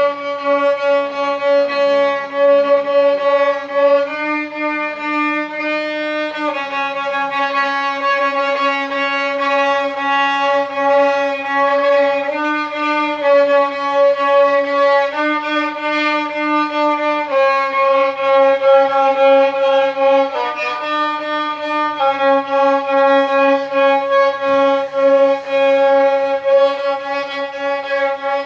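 Violin playing slow, long held notes, moving to a new pitch every one to three seconds.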